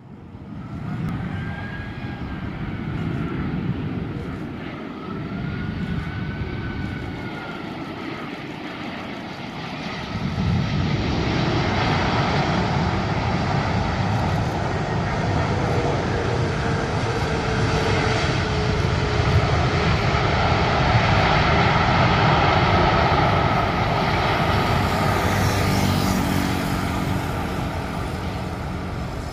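Malaysia Airlines Airbus A380's four Rolls-Royce Trent 900 jet engines running as the airliner moves along the runway. A steady, loud jet roar grows clearly louder about ten seconds in and stays strong, with a faint whine slowly falling in pitch.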